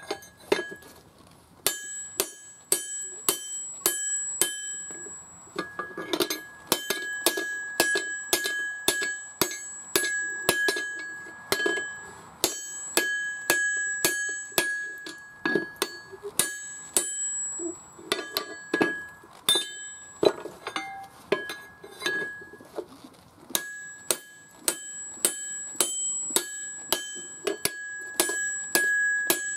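Hand hammer striking a handled top tool held on a hot axe head on a steel anvil, in runs of blows about two or three a second with short pauses. Each blow rings with a clear, bell-like metallic tone.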